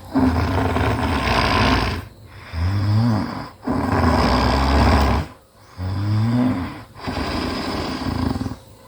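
A sleeping person snoring heavily: about five rough, rattling snores, each a second or two long, with short breaks between.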